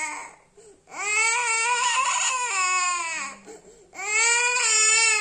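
A young boy crying hard in long, loud wails. After a short catch of breath, one wail runs about two seconds and falls in pitch at the end; a brief sob follows, then a second wail starts just before the end.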